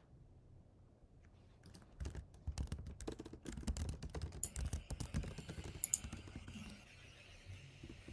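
Typing on a computer keyboard: a quick run of key clicks that starts about two seconds in and tails off near the end.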